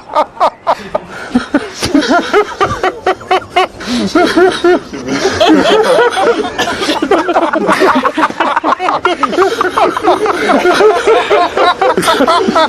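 Laughter sound effect: a few short bursts of laughing at first, then from about two seconds in several voices laughing hard together, overlapping densely and carrying on without a break.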